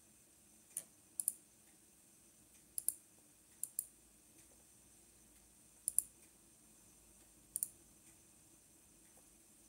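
Sharp clicks, most of them in close pairs, six times over about seven seconds, over a faint steady hum.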